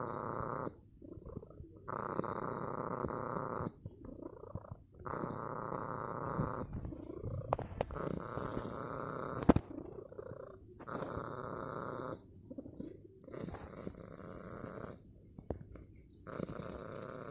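Domestic cat purring in its sleep, in long pulses with short pauses between them, about one every three seconds with its breathing. A sharp click cuts in once about halfway through.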